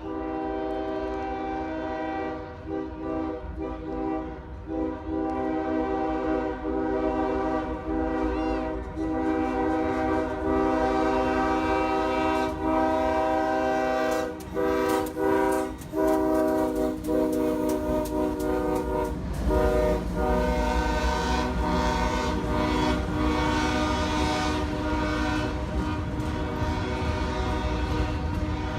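Locomotive air horn sounding a long series of blasts with short breaks between them, over the rumble of a passing train that grows heavier in the second half.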